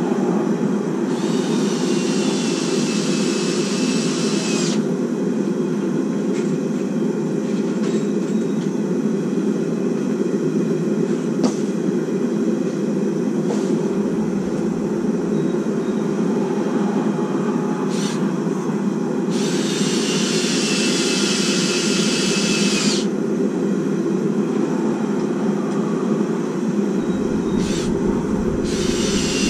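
A steady low roar from a gas forge runs throughout. Three times, a power drill runs for a few seconds, its whine falling in pitch as it runs.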